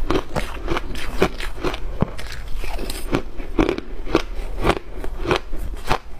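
Close-miked crunching of shaved ice being chewed, a quick steady run of crisp crunches at about three a second.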